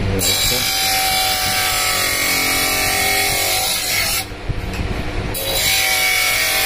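A spectacle lens being ground by hand against the wheel of an optician's motor-driven hand edger: a loud rasping grind with a squealing edge over a steady motor hum. The grind eases off for about a second, about four seconds in, then resumes.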